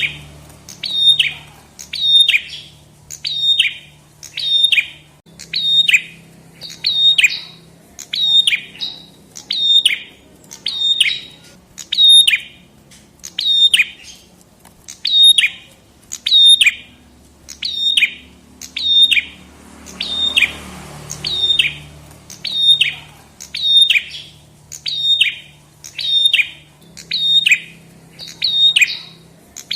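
A prenjak kepala merah, a small Indonesian warbler, calling over and over: sharp, loud chirps about one a second, each dropping quickly in pitch.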